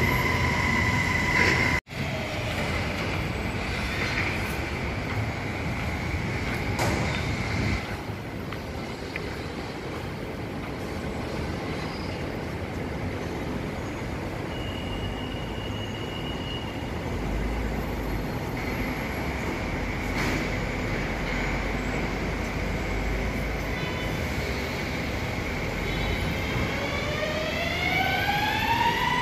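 Electric metro train at an elevated platform. A steady electric whine cuts off suddenly about two seconds in, then comes a steady hum while the train stands. Near the end the traction motors' whine rises in pitch as the train starts to pull away.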